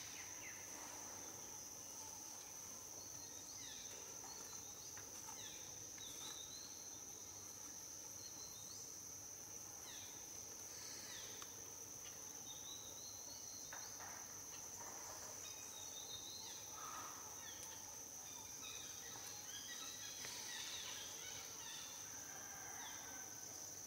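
Faint forest ambience: a steady high-pitched insect drone throughout, with many short, quick downward bird chirps scattered over it.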